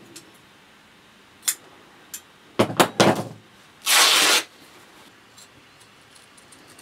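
Cloth being handled and shaken out: a few sharp flaps about two and a half to three seconds in, then a short hissing swish of fabric about a second later, with light ticks from small objects on a desk.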